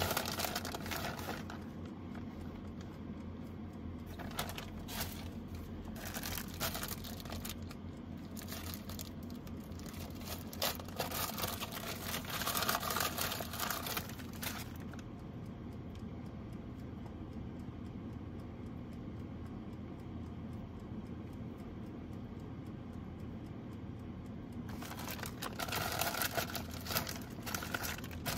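Plastic bag of shredded cheddar cheese crinkling in several spurts as it is handled and shaken over a pizza, the longest spurt in the middle. Near the end another plastic food package crinkles. A steady low hum runs underneath.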